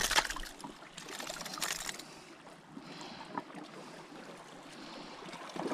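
Water trickling and lapping, with a few brief knocks and rattles near the start and again about a second and a half in.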